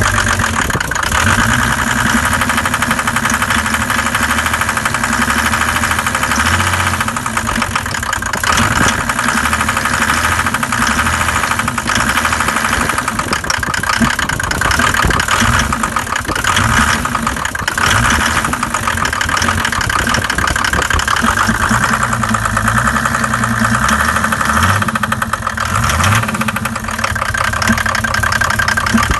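Mercedes-Benz OM606 inline-six diesel running cold, with a steady fast clatter and a weird knocking that comes in near the end. The uploader traced the knock to leaking intake valves, cured by new valves and lifters.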